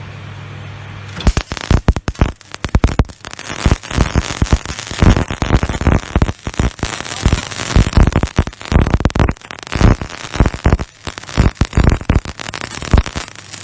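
Electric arc welding: a welding machine hums steadily at idle, then about a second in the arc strikes and crackles and spits irregularly and loudly.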